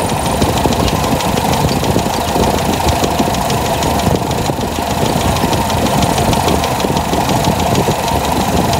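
Toyota 4K four-cylinder petrol engine idling steadily, its ignition timing set to 8 degrees before top dead centre.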